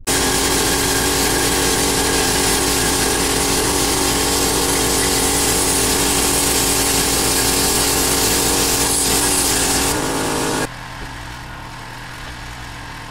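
Handheld angle grinder running steadily as it cuts through steel railroad spikes. About eleven seconds in, the sound gives way to a quieter, steady hum from a bench grinder spinning freely, with nothing against the wheel.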